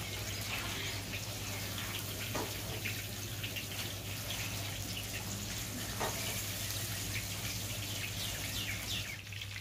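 Chicken pakora deep-frying in hot oil in a wide kadai: a steady sizzle with scattered crackles and pops, as a slotted skimmer turns and lifts the pieces.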